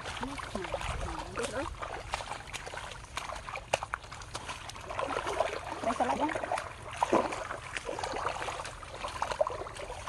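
Muddy shallow water sloshing and splashing as people wade and work a bamboo plunge-basket fish trap, with scattered knocks. Faint voices come and go.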